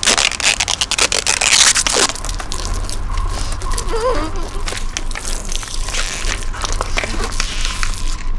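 Plastic film crinkling and crackling in many sharp clicks over a rustling hiss, busiest in the first two seconds.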